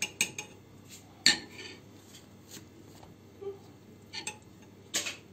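Metal spoon clinking against a ceramic soup bowl while stirring the soup: several scattered clinks, the loudest about a second in and another near the end.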